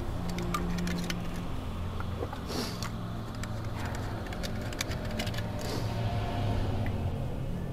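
Low steady droning tones under a scatter of sharp clicks and ticks, which come mostly in the first half. Two short hissing swells rise and fade, about two and a half and six seconds in.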